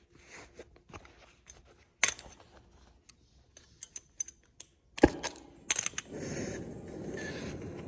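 Cutting torch being lit with a flint striker: scattered tool clatter and a sharp click, then a quick run of striker clicks about five seconds in, after which the torch catches and hisses steadily.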